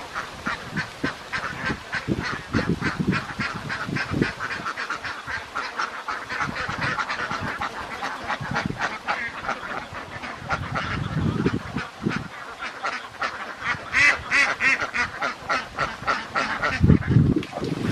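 A large flock of domestic ducks quacking continuously, many birds calling over one another in a dense, rapid chatter, with a louder cluster of calls about fourteen seconds in.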